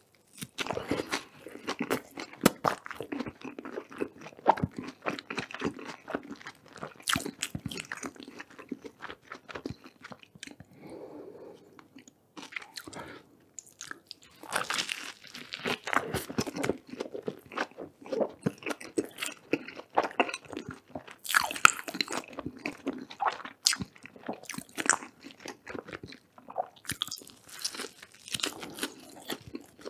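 Close-miked eating of a sesame-seed-bun burger: big bites and chewing, full of sharp crunchy crackles, easing off briefly about ten seconds in before the crunching picks up again.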